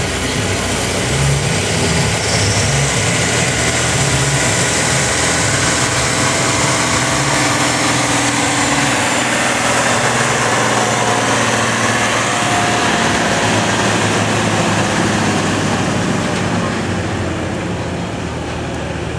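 Farm tractor's diesel engine working hard under full load as it drags a weight-transfer pulling sled, running steadily and loudly, then easing off near the end as the pull finishes.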